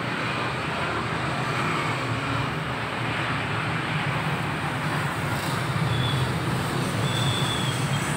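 A cordless drill runs steadily, spinning a valve against its seat in a motorcycle cylinder head to lap it in with grinding compound. The valve face grinds against the seat under the drill's whir.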